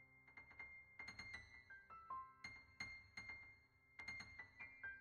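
Faint background piano music: a gentle run of single struck notes, stepping up and down in pitch.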